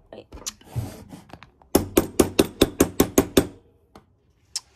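A brief scrape, then a quick run of about nine sharp, evenly spaced clicks, about five a second, as a screwdriver works at a cordless drill's opened gearbox housing to free its planetary gears.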